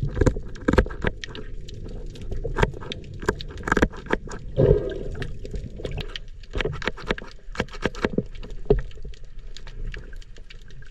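Shears snipping the spines off a lionfish underwater: a run of sharp clicks at uneven intervals, heard through the water.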